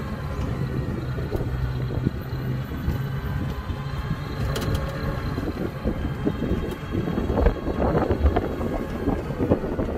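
Driving noise of a small electric car heard from inside: a steady rumble of tyres on the road with wind hiss and a low steady hum for the first half. A run of louder rattles and knocks comes about seven to nine seconds in.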